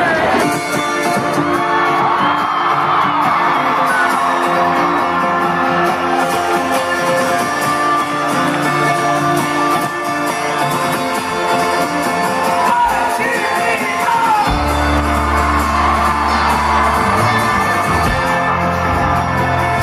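Live folk-rock band playing the opening of a song on acoustic guitar, keyboard and upright bass, held chords ringing. A heavy low bass comes in about two-thirds of the way through.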